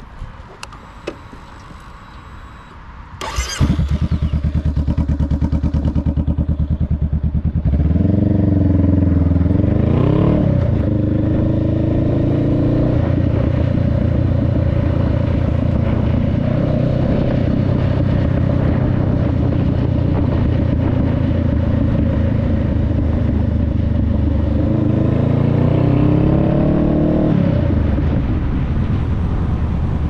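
Honda Rebel 500's parallel-twin engine through a Two Bros aftermarket exhaust, starting up about three seconds in and idling, then revving up as the bike pulls away and shifts. It runs steadily at cruising speed, with a second rise in revs and a drop near the end.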